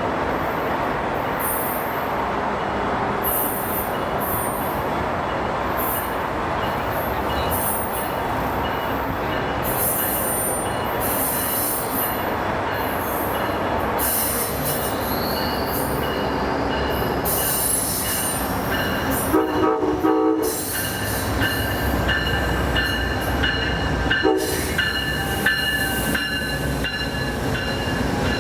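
A train running past close by: a steady rumble of wheels and cars on the rails, with flickering high-pitched wheel squeal and screech. About two-thirds of the way through come a brief pitched blast and a shorter one a few seconds later.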